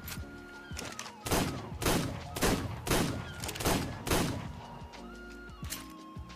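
Six revolver shots fired in quick succession, about two a second, each a sharp crack with a ringing tail, over background music.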